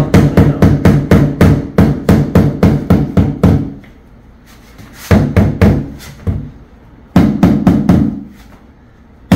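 Mallet tapping a 600 mm porcelain floor tile down into its mortar bed to level it: quick, dull knocks about four a second for a few seconds, then two shorter runs of knocks.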